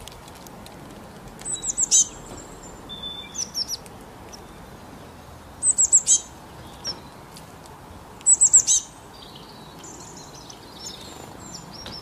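Small wild songbirds calling: several short runs of four or five quick, high, falling chirps, with softer single notes between them and a faint steady hiss underneath.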